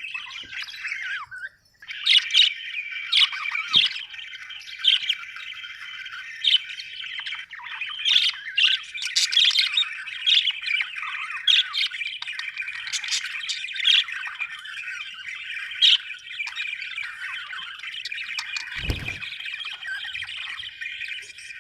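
Budgerigars warbling and chattering continuously, with frequent sharp squawks and chirps over the top. The flock's chatter drops away briefly about two seconds in, and a short low thump comes near the end.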